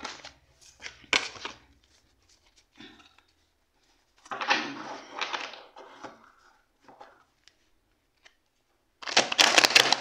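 Large tarot cards being swept together off a wooden table and shuffled by hand. The sound comes in a few short bursts of papery rustling and slapping, with quiet gaps between, and the loudest burst comes near the end. The cards are big and hard to shuffle.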